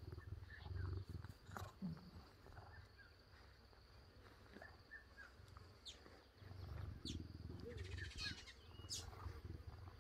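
Cheetahs purring faintly while grooming each other: a low rumbling purr that comes in pulses, fading out in the middle and returning in the second half, with a few short, high chirps near the end.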